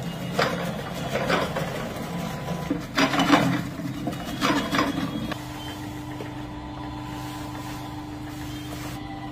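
Electric vegetable chopper's motor humming steadily while it chops small red onions, with irregular loud crunching and clattering as they are pushed through, for about the first five seconds. After that the motor keeps running with only its steady hum.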